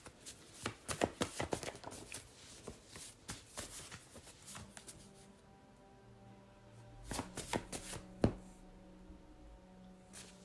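Tarot cards being shuffled by hand: a rapid run of light card clicks and slaps for the first few seconds, then a quieter stretch, then another flurry of clicks a little after the middle, ending in one sharper slap.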